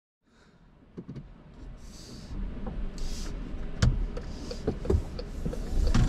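Cabin sound of a 2020 Chrysler Pacifica Hybrid pulling away: a low rumble that builds as the van gathers speed. Scattered knocks and clicks come through it, the loudest about four seconds in, and there are two short hisses around two and three seconds.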